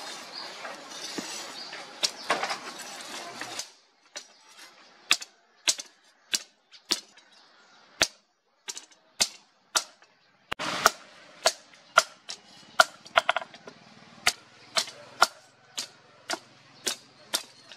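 Hammer blows on a leaf-spring steel machete blade lying on a steel anvil. After a few seconds of steady rushing noise, sharp single strikes come about once or twice a second, then quicken about halfway through, each with a short metallic ring.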